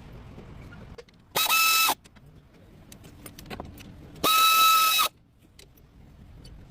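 Car horn sounding twice, a short blast of about half a second and then a longer one of nearly a second, each a steady tone. A low steady rumble runs between the blasts.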